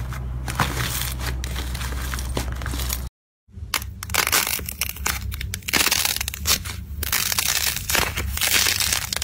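Hands pressing and breaking up a box of crumbly green slime, a dense crackling. A brief cut about three seconds in, then a thick blue slime is squeezed and pulled apart so its surface tears, with a denser crackling of small pops.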